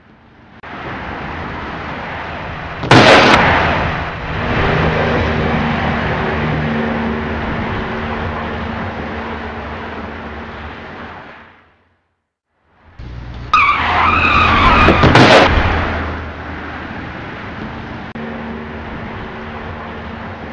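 Road traffic noise broken by two car crashes. A sudden loud impact comes about three seconds in; later, after a brief silence, tyres squeal with a wavering pitch before a second impact.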